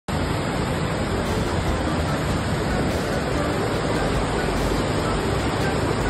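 Fast-flowing river rushing over rocks through rapids: a steady, unbroken roar of water.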